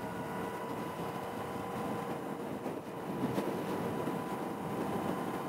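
Motorcycle riding at a steady speed: even engine and wind noise with a faint steady hum.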